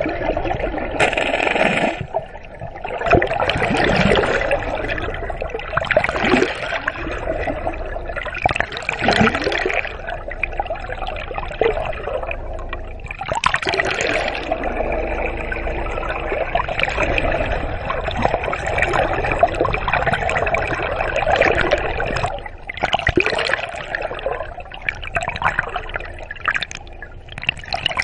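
Water sloshing and gurgling around an underwater camera, an uneven rushing noise that swells and fades every few seconds.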